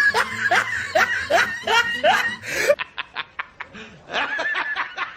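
Hearty laughter in a quick run of ha-ha pulses, about three a second, changing in sound a little after halfway.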